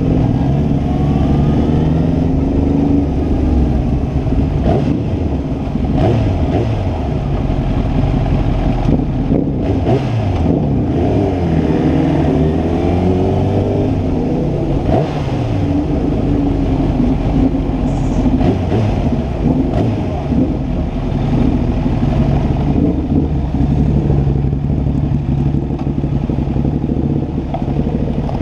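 Kawasaki sport motorcycle's engine running at low road speed, its pitch rising and falling again and again as the rider accelerates, shifts and rolls off the throttle.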